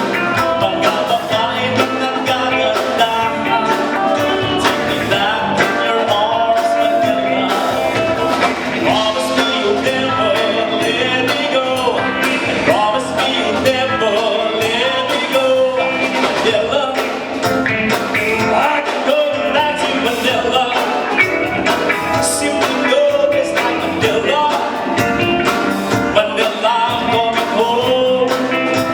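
Live band playing a rock-style song, a singer's voice over guitar and a steady beat.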